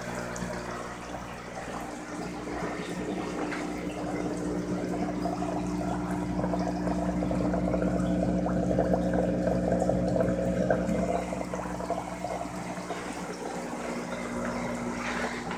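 Water running and splashing into shallow plastic tubs of water, over a steady low hum, a little louder in the middle.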